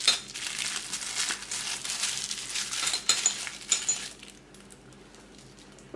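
Plastic piping bag crinkling as it is squeezed to push the batter down to the tip, with a few light clicks. It goes quiet about four seconds in.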